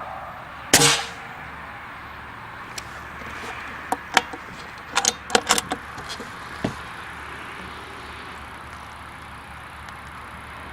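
A single shot from an Air Arms S410 bullpup PCP air rifle about a second in, a sharp crack with a brief tail, followed a few seconds later by a series of light metallic clicks.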